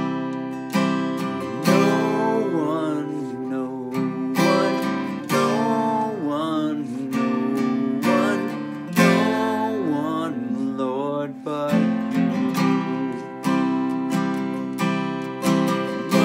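Acoustic guitar strummed in chords at a slow, even pace, with a man's voice singing a melody over it.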